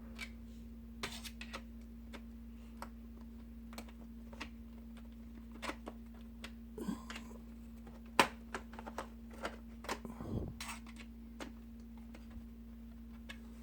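Scattered small clicks and taps of a screwdriver and fingers working on a laptop's bottom case and screws, with one sharper click a little past halfway and a few brief scrapes, over a steady low hum.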